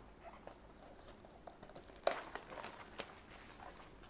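Clear plastic shrink wrap crinkling and tearing as it is peeled off a trading card booster box, in scattered crackles with the loudest about two seconds in.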